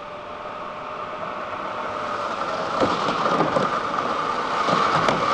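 Electric motor and gear whine of a Traxxas TRX-4 scale RC crawler driving on a dirt trail, growing steadily louder as it comes closer. From about three seconds in, its tyres crunch and scatter dirt and small stones.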